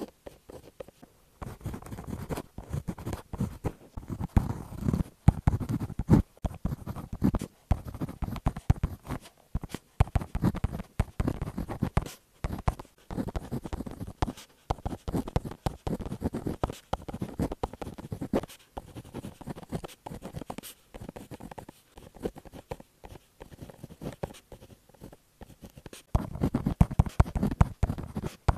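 Irregular scratching strokes in quick, uneven runs, with brief pauses between them.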